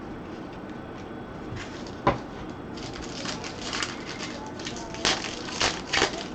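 Crinkling and crackling of packaging and cards being handled and torn open, with a sharp click about two seconds in and a few louder crinkles near the end.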